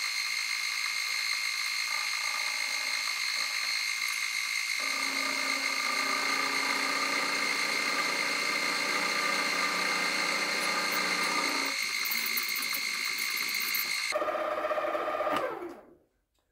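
Small milling machine running with a steady high whine while milling dovetail slots for barrel underlugs; from about five seconds in to about twelve a lower cutting sound joins it. Near the end the motor is switched off and the spindle winds down with falling pitch.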